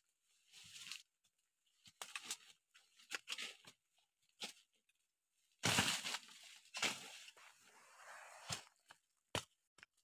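Digging around a sâm cau plant's root in forest soil and leaf litter: scattered bursts of scraping, rustling and tearing, with a longer stretch of scraping past the middle and a few sharp clicks near the end.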